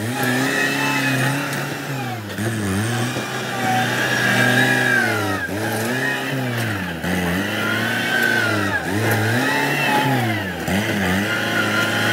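Farm tractor's diesel engine working under load as it pushes soil with a front blade. Its pitch dips and recovers every second or two, with a high whine riding along with it.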